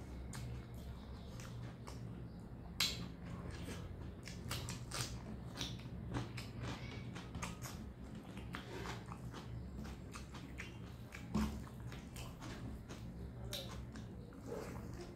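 Close-up eating sounds from a person eating rice and fried egg by hand: chewing, with many short wet clicks and smacks scattered irregularly throughout.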